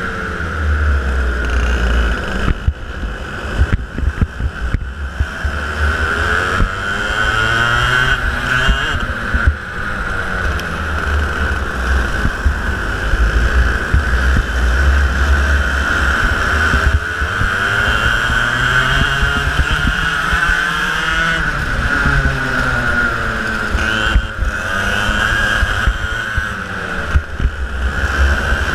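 Racing kart engine heard onboard, its revs rising and falling over and over as the kart brakes into corners and accelerates out, with rumble from the chassis and wind on the camera microphone; other karts run close by.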